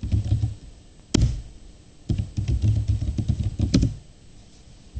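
Computer keyboard typing: a short run of keystrokes, a single louder key strike about a second in, then a longer run of keystrokes from about two seconds in that ends in another louder strike.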